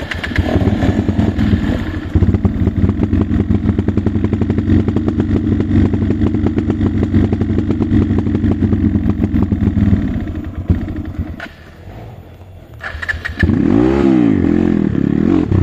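Dirt bike engines running close by with a rapid, steady firing beat; the sound fades about ten seconds in, then an engine is revved in a few rising-and-falling blips near the end as a bike pulls away.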